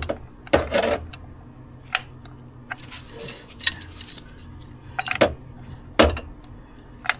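Steel breaker bar and 18 mm socket clinking and knocking against metal as they are fitted onto the next engine-mount bolt: a string of sharp metallic clanks at irregular intervals, over a low steady hum.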